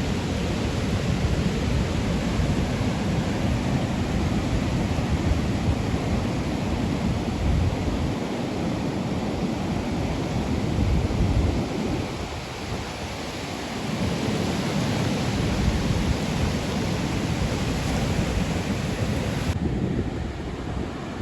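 Wind buffeting the microphone with a heavy low rumble, over the rush of the sea; it eases briefly about twelve seconds in.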